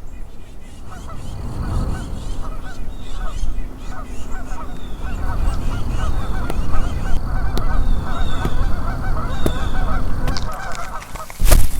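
A flock of geese honking, with many overlapping calls that grow denser about halfway through. A sudden loud crash cuts in just before the end.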